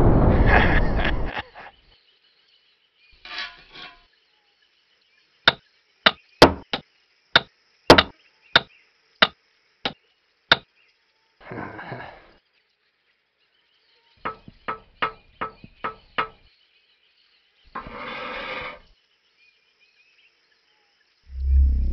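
Hammer blows on wood: a run of about a dozen sharp strikes half a second apart, then a quicker cluster of about eight, with short bursts of noise about a second long in between.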